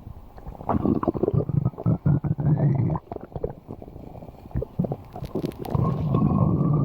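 Stomach growling: gurgling rumbles with faint rising squeaky tones, in two long bouts, the first about a second in and the second near the end, with quieter crackling gurgles between.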